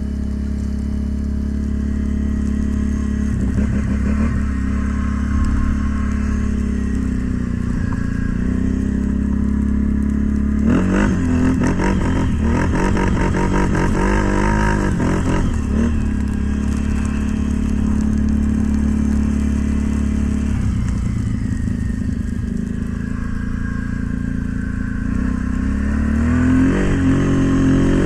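A motor vehicle's engine running steadily while driving, its sound turning busier and more uneven from about eleven to sixteen seconds in and again near the end.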